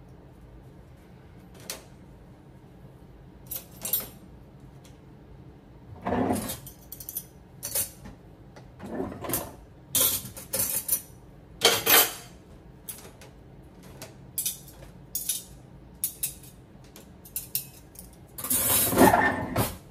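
Metal cutlery and dishes clinking and clattering in irregular knocks as a dishwasher is unloaded, with a longer jangle of silverware near the end.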